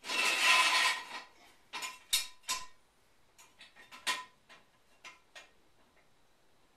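Metal clatter from jacking up the car with a floor jack: a loud scraping clatter for about the first second, then a scatter of sharp metallic clicks and taps with a slight ring.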